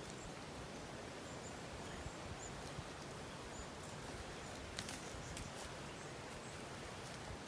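Faint outdoor ambience: a steady even hiss with scattered brief high chirps and a few sharp clicks, the clearest about five seconds in.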